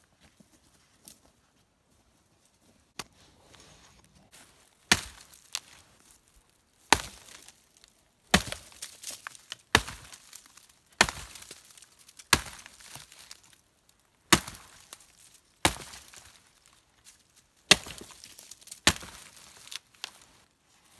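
Hatchet chopping into a dead fallen log: about ten sharp strikes, one every second and a half or so, starting about three seconds in.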